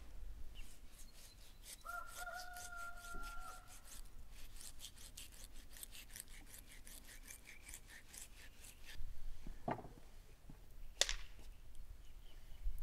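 Chef's knife cutting along the bones of a raw beef rib rack in quick repeated strokes, about three or four a second. A bird call is held for about two seconds in the background about two seconds in, and two sharp knocks come near the end.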